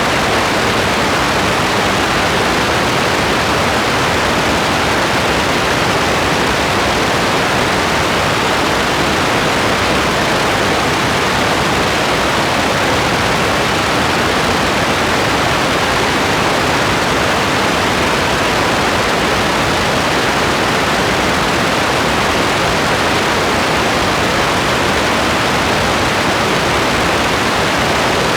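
Steady rain, an even hiss with no single drops, thunder or other sounds standing out.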